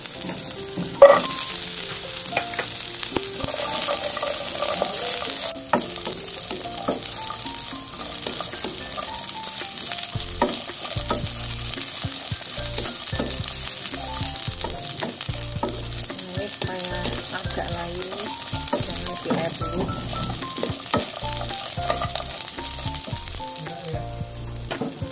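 Cut yard-long beans frying in hot oil in a wok, a steady sizzle as a wooden spatula stirs them. About a second in there is one sharp, loud burst as the beans go into the pan.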